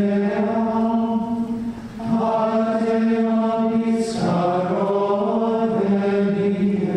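Slow vocal chant sung in long held notes, moving to a new note about two seconds in and again about four seconds in, where a hissed consonant is heard.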